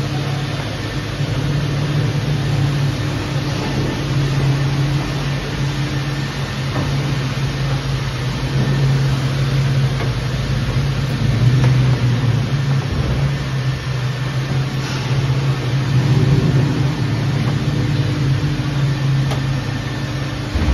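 Steady low mechanical hum of self-serve car wash equipment, with a foam brush scrubbing a car's paint.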